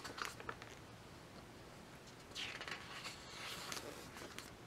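Glossy pages of a large, heavy photobook being turned by hand: faint paper swishes and rustles, one near the start and a couple more about halfway through.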